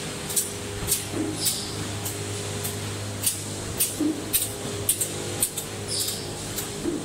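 Jumbo K1 2645 flexo printer slotter die cutter running: a steady low machine hum, with short sharp hissing clicks several times a second and a duller knock about every second and a half.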